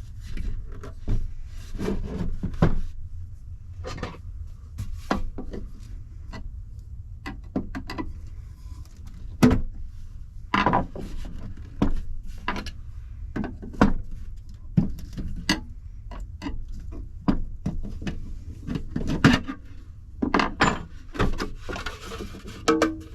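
Metal light fixture being dismantled by hand: irregular clicks, knocks and clatter of tools and parts, with a short scraping rustle near the end and a steady low hum underneath.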